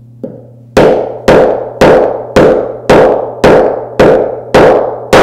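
The metal butt end of a Marshalltown scraper's handle knocking against drywall: a light tap, then about nine hard knocks, roughly two a second, each ringing briefly. It is dimpling the sheetrock around a screw hole so joint compound can fill it flush.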